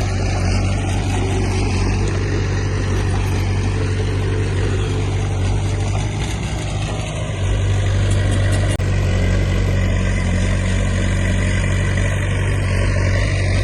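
Diesel engine of heavy earthmoving equipment running steadily, with a brief dip in level about seven seconds in.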